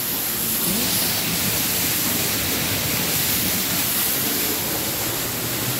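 A steady rushing hiss, even in level, with no clear single event in it.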